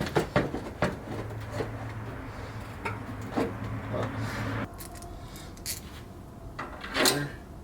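Clicks, knocks and light clatter of hard parts and tools being handled during work on a car's front end. A low steady hum runs under it for a few seconds and cuts off abruptly about halfway through.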